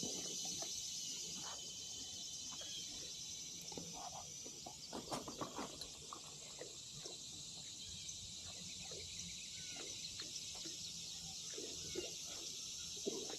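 Quiet outdoor creek ambience: a steady high insect drone, with scattered faint ticks and small splashes clustered around the middle.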